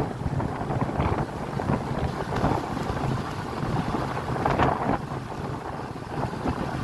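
Wind buffeting the microphone over the low, steady rumble of a vehicle moving along a paved road.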